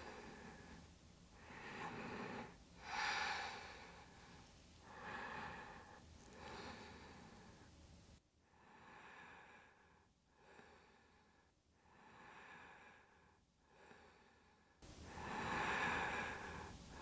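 A woman breathing slowly and audibly, in and out, heard as faint soft rushes of air every second or two.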